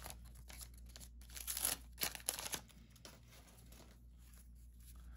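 Wax-paper wrapper of a 1991 Fleer basketball card pack being torn open and crinkled. It comes in a few short crackling bursts from about a second and a half to two and a half seconds in, then fades to faint handling.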